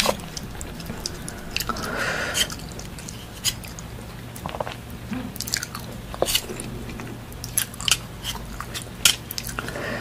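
People chewing and biting food close to the microphone, with many short clicks, smacks and crunches scattered throughout. A faint steady low hum runs underneath.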